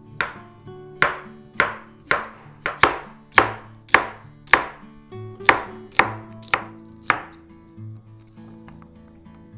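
Kitchen knife chopping zucchini on a wooden cutting board: about a dozen sharp chops, roughly two a second, stopping about seven seconds in. Soft acoustic guitar music plays underneath.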